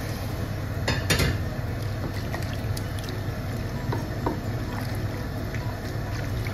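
Broth poured from a pot into a stainless steel pot of chopped beef, then a wooden spoon stirring the wet mixture and scraping the pot, over a steady low hum. A couple of sharp metal knocks about a second in, and lighter clicks around four seconds.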